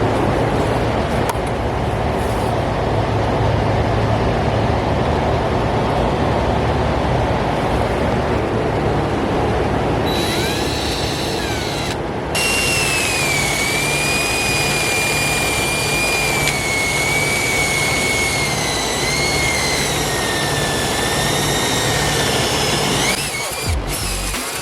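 Angle grinder with an abrasive paint-stripping pad working on the car body's metal: a steady grinding noise, joined about halfway through by a high whine that wavers and slowly drops in pitch as the pad is loaded.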